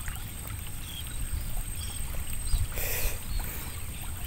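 Outdoor wind rumbling on the microphone over open pond water, steady and low. A brief burst of noise comes about three seconds in.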